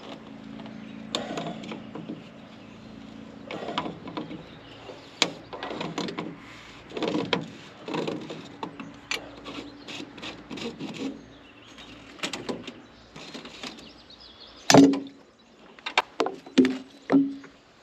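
Hands-on work at an excavator's engine bay while changing its fuel filter: tools and metal parts knock, scrape and rub irregularly. Near the end come a few sharper clanks with a brief ringing tone, the loudest a little before the last three seconds. A low steady hum underneath fades out about two-thirds of the way through.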